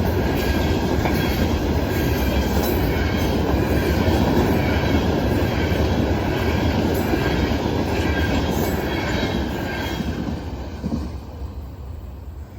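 Loaded freight train of grain hopper cars rolling past on the rails: a steady heavy rumble and clatter of steel wheels with a faint wheel squeal. The sound fades away over the last couple of seconds.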